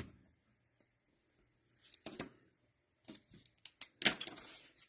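Trading cards being handled on a table: scattered light clicks and taps, with a short rustle just after four seconds.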